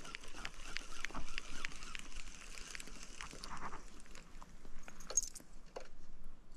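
Spinning reel being cranked to bring in a lure, with light, irregular clicks and ticks a few times a second.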